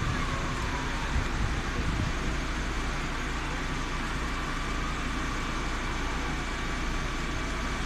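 Steady low rumble of fire engines running in the street below, with a faint whine over it. A few bumps in the first two seconds.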